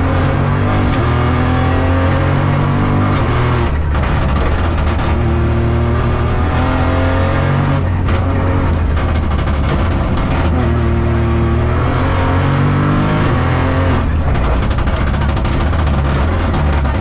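Opel Corsa Rally4's turbocharged three-cylinder engine pulling hard through the gears, heard from inside the cabin, with short breaks at the gear shifts about 4, 8 and 14 seconds in.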